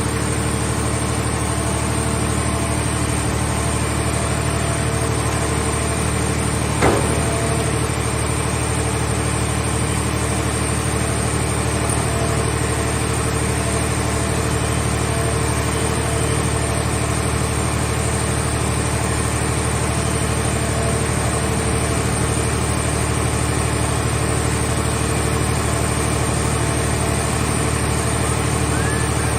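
Scrap car-body baler's engine or hydraulic power unit running steadily, with one sharp knock about seven seconds in.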